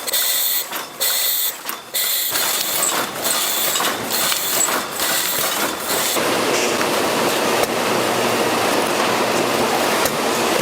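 Automatic pineapple-peeling machine running, a loud mechanical rattle. For the first six seconds it comes in stop-start bursts with a high hiss, then it settles into a continuous run.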